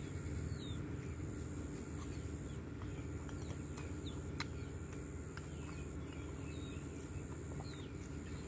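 Quiet garden ambience: scattered faint bird chirps over a steady low background noise and a thin high steady tone. A few light clicks of chopsticks against porcelain bowls come through, the clearest about halfway through.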